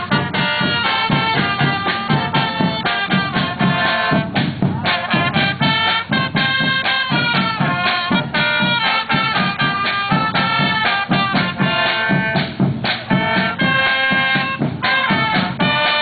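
Marching band playing a tune on brass instruments, with a regular drum beat underneath.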